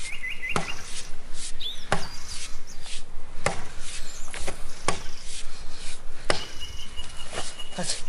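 A fallen wooden branch being chopped with sharp, irregularly spaced blows, about seven in all.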